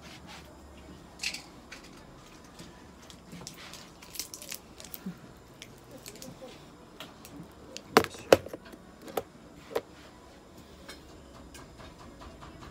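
Scattered clicks, taps and clatter of small items being handled, with two sharp knocks about eight seconds in and two more shortly after.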